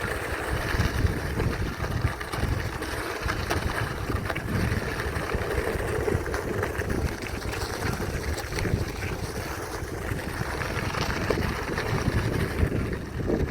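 Wind buffeting the microphone outdoors: a continuous, gusting low rumble with a broad hiss over it.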